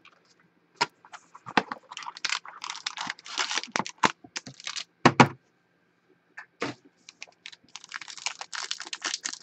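Hands opening a Panini Limited football card box: irregular clicks and scrapes of cardboard and plastic, with one sharper knock about five seconds in. Near the end a foil card pack starts crinkling steadily as it is unwrapped.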